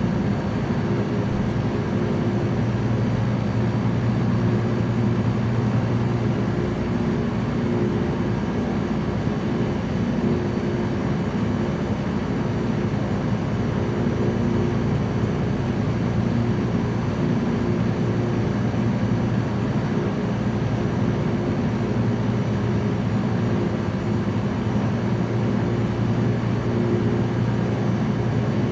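Small light aircraft's engine and propeller droning steadily in cruise, with a steady low hum over a wash of noise.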